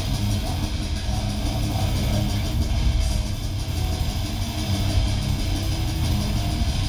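Black metal band playing live: a loud, unbroken wall of distorted electric guitar and drums, picked up from within the crowd.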